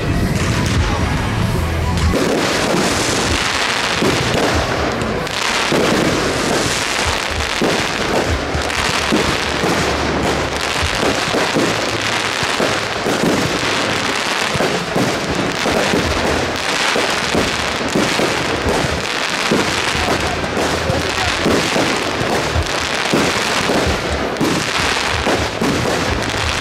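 Fireworks display: shells launching and bursting in quick succession, a dense, unbroken run of bangs and crackle.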